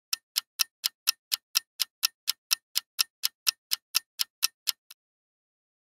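Clock-ticking sound effect for a countdown timer: about twenty sharp, even ticks, about four a second, stopping near the end.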